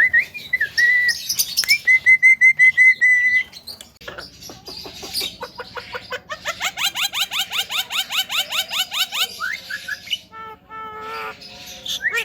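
Javan myna calling: a quick string of whistled notes in the first three seconds, then a long fast run of repeated chattering notes, several a second, and a few short nasal notes near the end.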